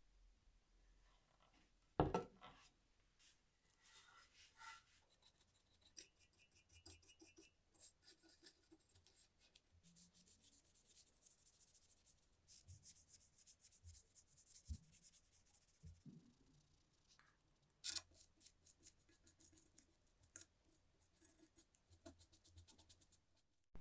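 Faint scraping and rubbing of hand work on small parts, with scattered small clicks and two sharper taps, one about two seconds in and one near the end.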